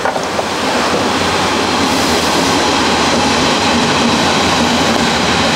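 Stahlwerk MIG 175 ST IGBT MIG welder laying a continuous weld on car-body sheet steel: a steady, unbroken arc noise.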